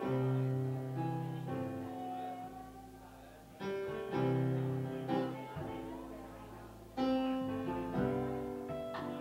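Live band on electric guitar, bass and keyboard playing slow, sustained chords: three loud chords struck about three and a half seconds apart, each left to ring and fade.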